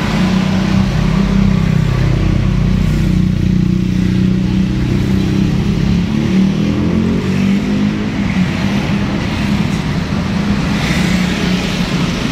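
A steady, loud, low motor hum holds at a nearly constant pitch throughout.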